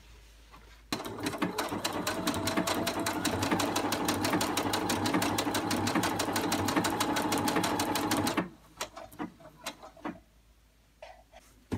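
Baby Lock sewing machine running at a steady speed, its needle stitching around the edge of a fabric applique on a terry towel. It starts about a second in and stops a few seconds before the end, leaving a few light clicks of handling.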